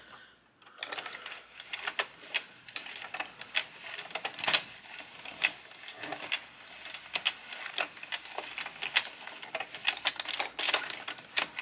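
Irregular plastic clicks and ticks, several a second, from an Addi King circular knitting machine being handled and moved by hand.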